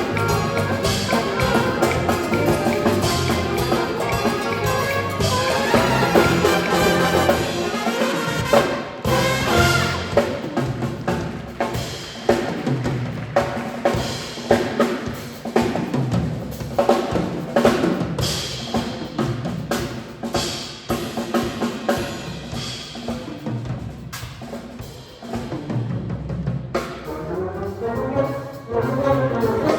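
Ensemble music with brass and percussion, with a brief break about nine seconds in and a quieter passage near the end before it swells again.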